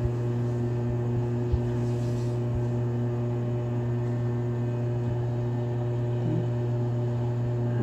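Steady low background hum, with a couple of faint clicks.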